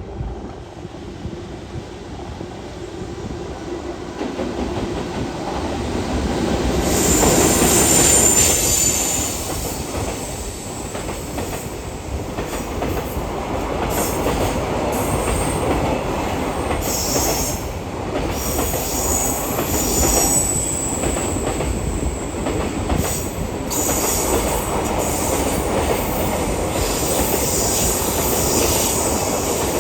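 A JR Freight EF210 electric locomotive hauling a freight train passes at speed. The rumble builds to its loudest about eight seconds in as the locomotive goes by, then the wagons follow with a steady clickety-clack of wheels over the rail joints and high-pitched wheel squeals that come and go.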